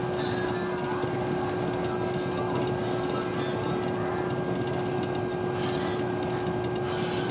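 Steady background hum and hiss with a constant low tone running through it, unchanging throughout, with no distinct events.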